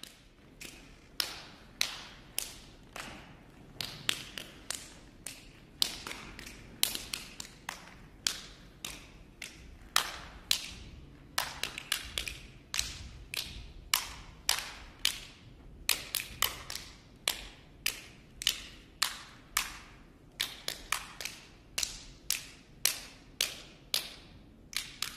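Sharp percussive taps, about two a second in an uneven rhythm, some coming in quick pairs.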